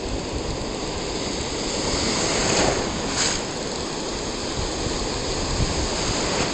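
Ocean surf breaking and washing close around the camera, a steady rush of whitewater that swells briefly a couple of times.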